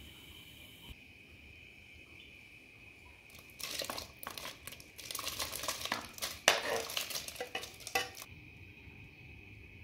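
A knife scraping diced peaches off a metal bowl into a pot of water: a run of clattering scrapes and small plops of fruit pieces from about three and a half seconds in until about eight seconds, with a sharp clink of metal about six and a half seconds in.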